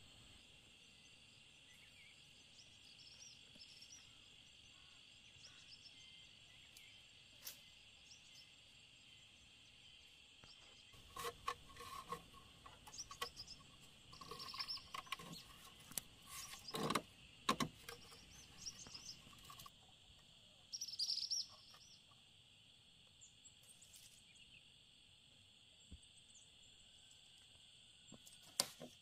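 Steady high insect drone with a few short bird chirps. In the middle, a run of hollow knocks and scrapes as long bamboo poles are handled and set up for a trellis, some knocks ringing briefly.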